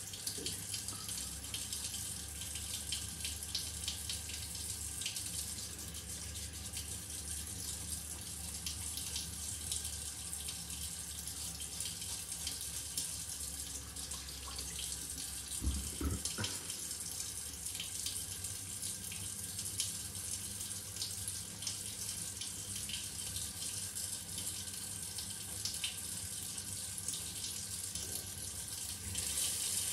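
Shower water running steadily onto tile, a constant hiss with scattered small splashing ticks. There is a single low thump about sixteen seconds in.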